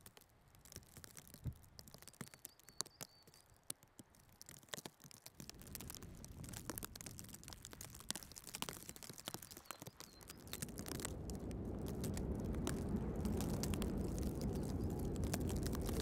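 Footsteps crunching in fresh snow, heard as irregular crunches and ticks. About ten seconds in, a steady low wind rumble on the microphone rises and becomes the loudest sound.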